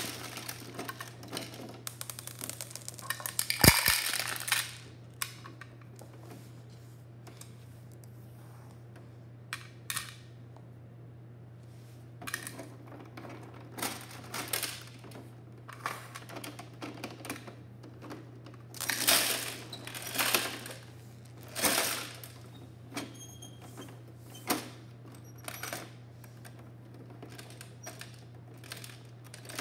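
Bruder plastic toy garbage truck and wheelie bins handled by hand: clicks, rattles and scrapes of the hard plastic rear-loader lifter and bins, loudest about four seconds in, then a scattered run of short rattles.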